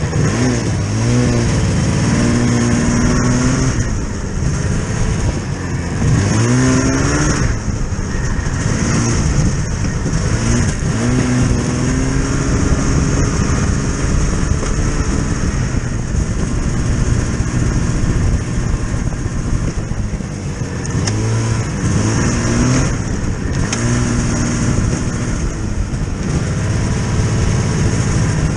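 A motor vehicle's engine running, its pitch rising and falling several times as it speeds up and eases off.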